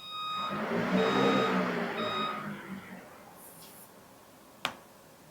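Three electronic beeps about a second apart over a rush of air that swells and dies away within about three seconds: the car's electric radiator fans cycling on while the PCM is being reprogrammed. A single sharp click near the end.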